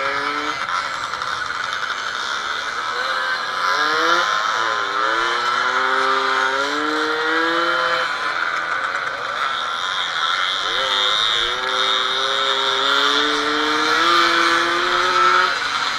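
Classic off-road motorcycle's two-stroke engine heard from on board, revving as the rider rides along: its pitch climbs slowly and drops back a few times, about four and eleven seconds in, with a loud rushing hiss over it.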